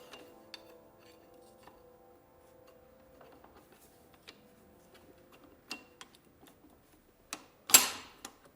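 Scattered metallic clicks and knocks of gearbox parts and tools being handled, ending in one louder clack near the end. Background music fades out over the first few seconds.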